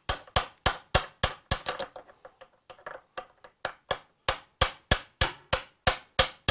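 Steady hammer blows, about three a second, on a makeshift drift driving the swingarm pivot shaft out through a Ducati 900SS's engine cases. The blows ease off to lighter taps in the middle and strike harder again near the end as the shaft slides out.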